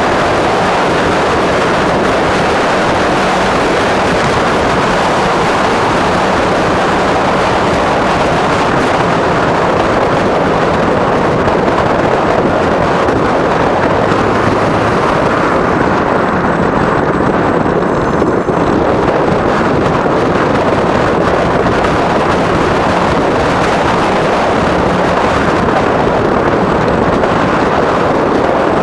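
Steady rush of wind buffeting the camera microphone, mixed with tyre and road noise, while riding a Qulbix Raptor electric bike at speed along a paved street.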